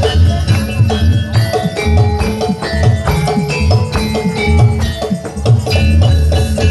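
Live jaranan accompaniment from a Javanese gamelan-style ensemble: deep drum beats under ringing metallic pitched notes, playing continuously.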